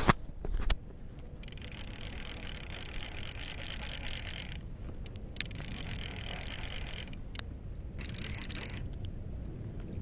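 Fishing reel being cranked in three spells, its gears whirring, as a catfish is reeled in to the bank. Loud knocks of handling at the start.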